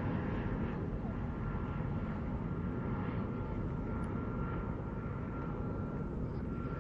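Airbus A320-232's twin IAE V2527 turbofan engines at climb power just after takeoff: a steady deep rumble with a thin, even whine above it, slowly fading as the jet climbs away.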